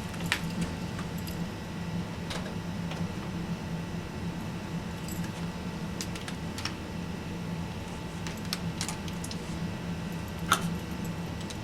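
Scattered light clicks and rattles of USB cables and plugs being handled and plugged in, with the sharpest click about ten and a half seconds in, over a steady low hum.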